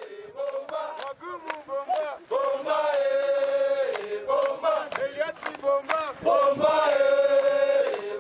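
A group of voices chanting a song together, with long held notes twice, and sharp clicks scattered through it.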